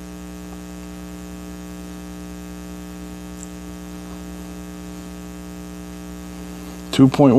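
Steady electrical mains hum: a low, unchanging buzz made of several evenly spaced tones.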